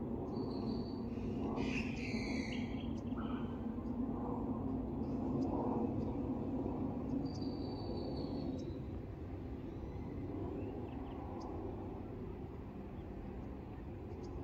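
Birds chirping and calling at dawn, a few short high calls and one brighter burst of chirping about two seconds in, over a steady low background rumble.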